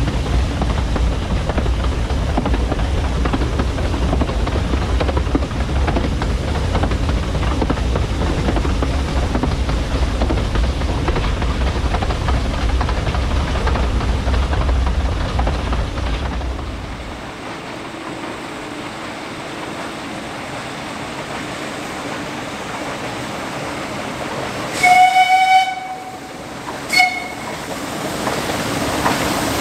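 A narrow-gauge train running with a heavy low rumble that eases off a little over halfway through. Near the end the steam locomotive's whistle sounds one steady blast of about a second, then a short toot.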